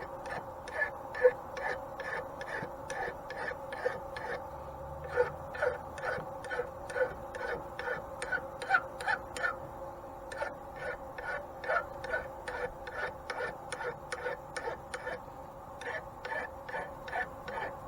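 An even series of light, sharp clicks, about two and a half a second, stopping for about a second near the end before resuming, over a steady low hum.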